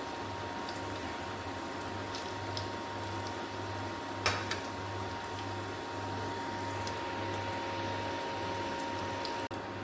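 Food cooking in a pan on the stove: a steady bubbling hiss over a low hum, with one sharp click about four seconds in.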